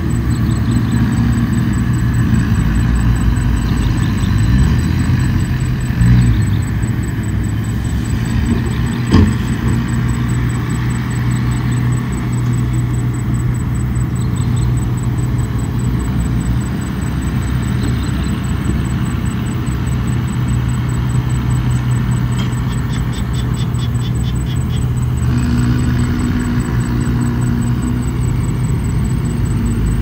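Bulldozer's diesel engine running steadily under load as it works sand, with a sharp knock about nine seconds in.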